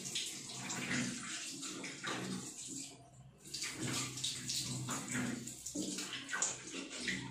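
Water running from a bathroom sink tap, with irregular splashing as hands scoop it to wash a face. The splashing eases briefly about three seconds in.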